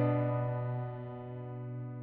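Background music: a soft electric piano chord rings on and slowly fades, with no new note struck.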